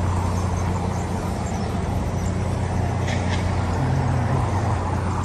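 Steady low hum of a motor vehicle engine running, over road traffic noise, with a couple of light clicks about three seconds in.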